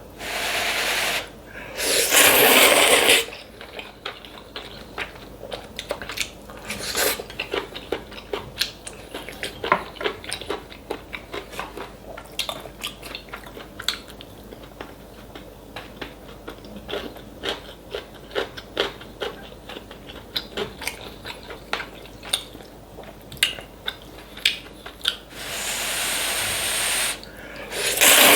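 Close-up eating sounds of mushroom kalguksu: two long slurps of noodles near the start, then about twenty seconds of wet chewing with many soft clicks, and two more long noodle slurps near the end.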